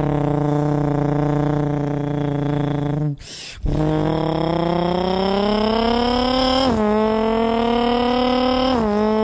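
Beatboxer's voice imitating a Nissan GT-R R35 engine. It holds a steady drone, breaks off briefly about three seconds in, then climbs in pitch like the car accelerating. The pitch drops suddenly twice, about seven and nine seconds in, like upshifts.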